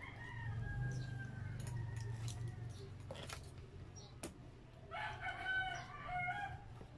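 A long, wavering animal call in the background about five seconds in, with a fainter drawn-out call at the start. Between them come a few sharp clicks of a plastic fork and fingers on a paper food box, over a steady low hum.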